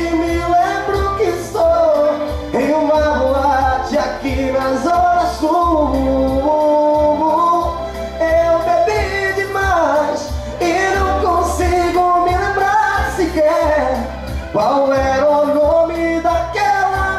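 Karaoke of a Brazilian sertanejo ballad: a backing track with a steady bass beat, and a man singing the long, sliding melody into a microphone over it.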